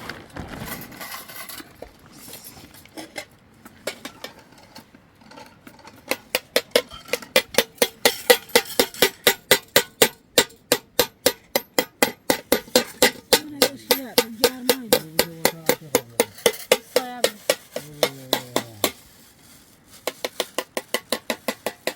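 Rapid, even striking of something hard, about four or five blows a second, each with a short ring. It starts about six seconds in and stops briefly near the end before going on.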